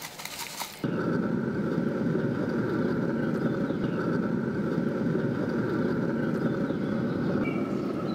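Steady hum with a faint whine from a running pellet smoker, typical of its fan. It starts abruptly about a second in.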